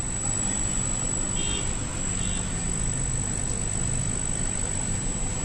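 Steady low rumbling background noise with a thin, steady high whine; two faint, short high tones come about one and a half and two and a quarter seconds in.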